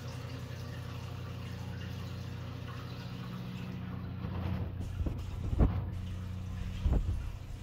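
Aquarium filter running: a steady low hum with trickling water. From about four seconds in, a few dull knocks are heard, the loudest near the middle and again near the end.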